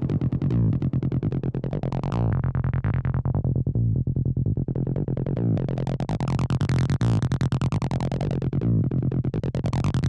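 Acid-style electronic music: a synthesizer bassline repeating fast, even notes while its filter sweeps slowly open and shut, brightening and darkening the tone over a few seconds at a time.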